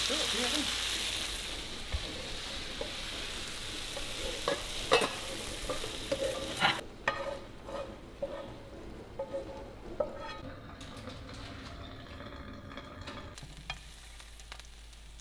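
Ground beef and vegetables frying in a skillet, sizzling as a spatula stirs and scrapes the pan. The sizzle is loudest at first and falls away after about seven seconds, leaving scattered clinks and knocks of pans and utensils.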